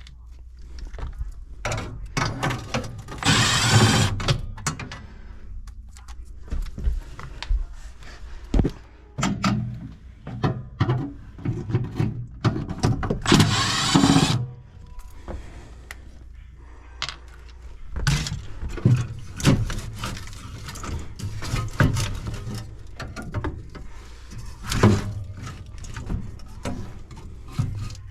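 Cordless drill/driver with a 1/4-inch nut driver spinning out furnace screws in two runs of about a second each, around three and thirteen seconds in, amid clinks and knocks of sheet-metal parts being handled.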